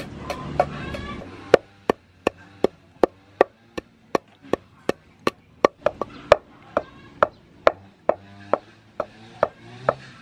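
Wooden pestle pounding black pepper in a wooden mortar: steady knocks with a short ring, about two to three a second.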